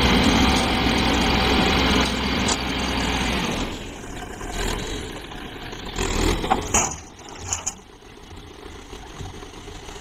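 Small dump truck's diesel engine running hard to power the hydraulic tipper as the loaded bed rises and soil slides out the back. About four seconds in the engine drops to a quieter run, with a few knocks and rattles a couple of seconds later.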